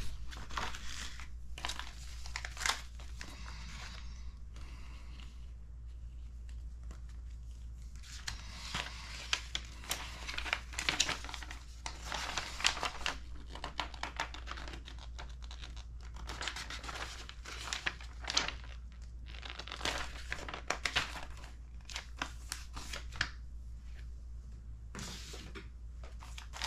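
Paper sheets and plastic parts bags crinkling and rustling as they are handled and a glossy brochure is unfolded, in irregular bursts with a couple of quieter stretches, over a steady low hum.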